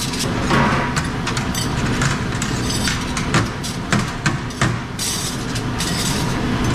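Metal silverware clattering and clinking as spoons and forks are handled and sorted, in irregular clusters over a steady machine hum.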